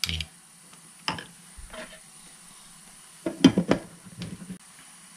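Metal spoon and chopsticks clinking and scraping against a ceramic bowl while mixing a thick gochujang sauce: a few scattered clinks, with a quick run of sharper clinks about three and a half seconds in.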